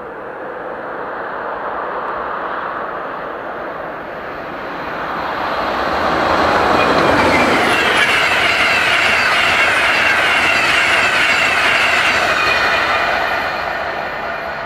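InterCity 225 train, a Class 91 electric locomotive with Mark 4 coaches, passing at speed. The rumble and rush of wheels on rail builds to a loud pass in the middle with a run of rhythmic wheel clatter, then fades near the end.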